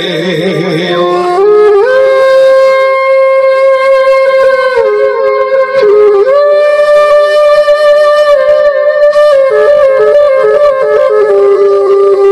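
Bansuri flute playing an instrumental interlude in long held notes, stepping up to a higher note twice and dropping back down near the end. A singer's last wavering note fades out in the first second.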